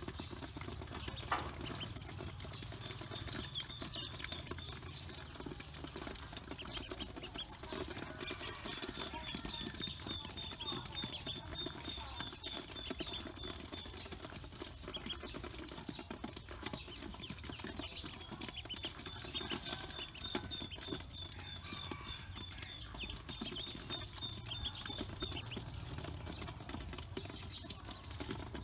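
A bowlful of Pekin ducklings feeding: many small ticks and scrabbles as bills peck feed and feet shuffle on the metal basin, with runs of quick, high peeps at one pitch several times.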